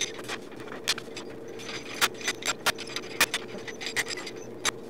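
Irregular metallic clicks and clanks, about one a second, from the steel screw and handle of a homemade bench vise being turned and tightened, drawing the tail into the vise body.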